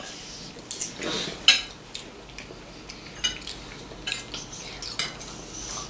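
Spoons and forks clinking and scraping against plates while people eat, a scatter of light irregular clicks and knocks.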